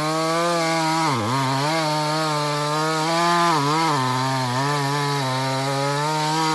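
Chainsaw running at full throttle in a cut, its engine note dipping briefly a few times as it bogs under load, most deeply about a second in.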